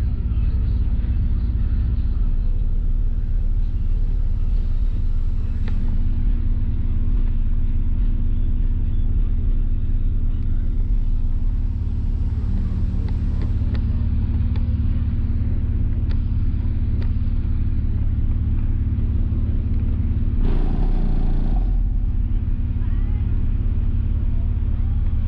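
Loud car-audio bass demo heard from outside the vehicle with its windows up: three Sundown Audio ZV5 15-inch subwoofers in a sixth-order wall box, driven by a Deaf Bonce Apocalypse 8k amplifier wired down to 0.33 ohm, playing music with a steady deep rumble.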